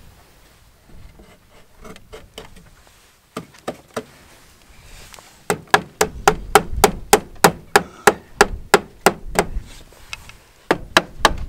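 Hammer nailing a wooden board onto a chicken coop. A few light taps come first, then a quick steady run of blows at about three or four a second, a short pause, and a few more blows near the end.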